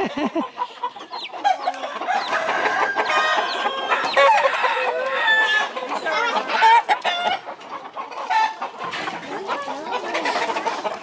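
Many chickens clucking together, with a rooster crowing among them.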